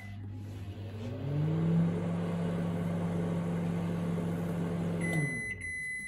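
Panasonic NN-ST46KB Genius Inverter microwave running: a steady hum from the start, joined about a second in by a second, higher tone that rises in pitch and then holds. It shuts off about five seconds in, with a high beep near the end.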